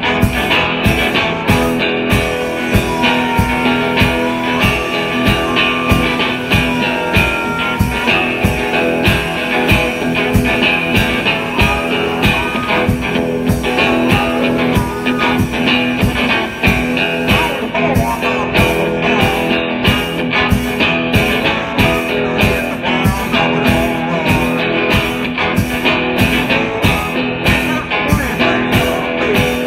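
Live blues-rock instrumental: an amplified harmonica played cupped against a microphone, with bending notes, over a steady drum-kit beat.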